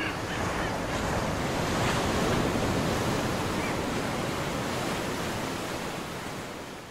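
Rough sea: waves churning and breaking in a steady rushing wash that swells a couple of seconds in and fades out near the end.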